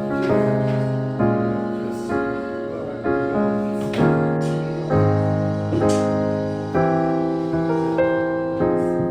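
Soft background piano music, chords struck about once a second, each fading before the next.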